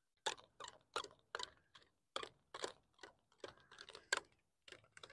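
Faint, uneven light clicks and crackles, two or three a second, of fishing line being wound by hand around a plastic water bottle used as an improvised hand reel.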